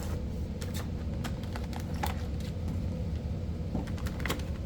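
Action-figure packaging handled by hand: scattered light clicks and taps of plastic and cardboard, a few per second, over a steady low hum.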